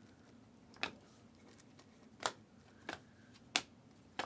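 Trading cards being handled: five sharp snaps, one every second or so.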